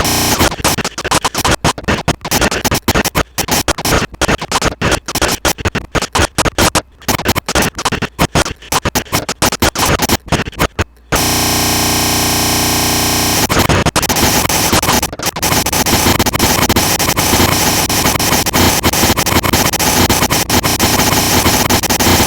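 Digital glitch sound effects: harsh static noise chopped into rapid stutters with abrupt dropouts, giving way about eleven seconds in to a steadier buzzing, crackling static with a few brief cuts.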